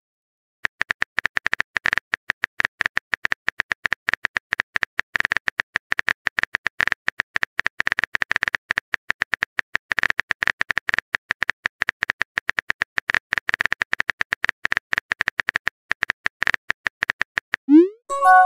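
Rapid clicks of a phone keyboard typing sound effect, keystroke after keystroke as a text message is typed out. Near the end comes a short rising whoosh as the message is sent.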